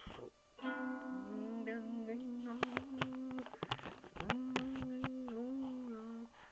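Music of long held, slightly wavering tones that change note a few times, with a few sharp clicks over them.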